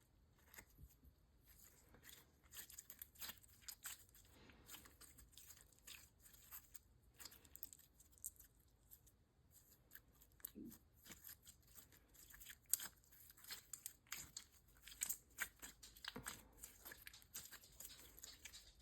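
Slime being squished and stretched by hand: many faint, short clicks and crackles coming irregularly, several to the second.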